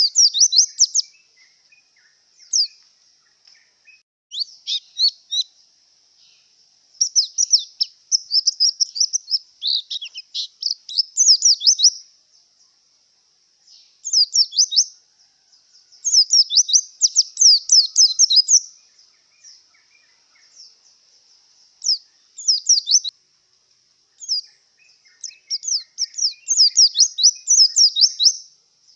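White-eye (pleci) in breeding condition singing: bursts of rapid, high twittering phrases, each a second to a few seconds long, with short pauses between. A faint steady high hiss runs under the song.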